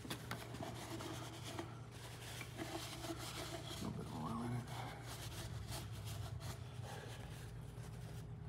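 Hands rubbing and shifting on a Detroit Diesel 8V92TA blower housing, with small scrapes and clicks, over a steady low hum.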